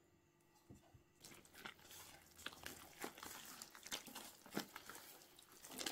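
A bare hand mixing flour, water, yeast and oil into a wet, shaggy bread dough in a plastic bowl: soft, irregular squelching and crackling that starts about a second in.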